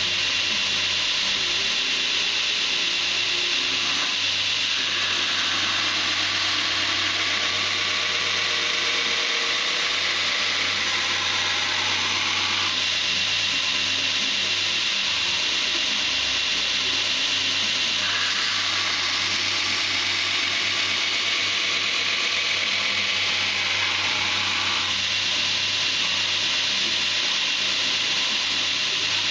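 Knife-making belt grinder running steadily, its abrasive belt grinding a D2 steel blade, with a steady low motor hum underneath. The grinding changes in tone every several seconds.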